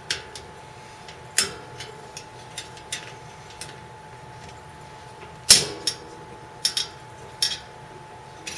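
Sharp, irregular clicks and ticks from a spoke wrench turning the spoke nipples of a bicycle wheel in a truing stand, loosening the spokes to release tension. The loudest click comes about five and a half seconds in.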